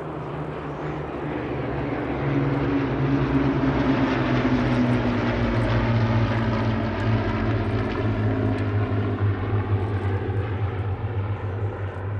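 Seven Hawker Hurricanes' Rolls-Royce Merlin V12 engines droning together as the formation flies over, growing louder over the first two seconds, then staying loud with the pitch easing slowly down as the aircraft pass.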